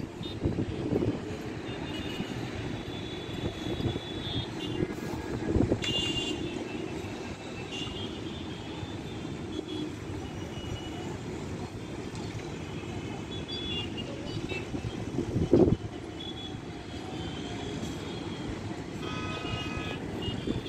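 Road traffic: a steady rumble of engines and tyres, with vehicle horns honking now and then, several in a cluster around five seconds in and again near the end. A brief thump about fifteen seconds in is the loudest sound.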